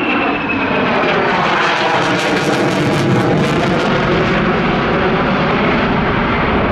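Boeing F/A-18 Super Hornet's twin turbofan jet engines during a low flying-display pass, loud and steady. A high whine slides down in pitch in the first second or two as the jet goes by.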